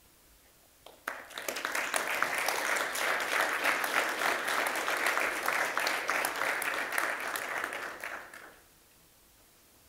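Audience applauding, starting about a second in and dying away after about seven seconds.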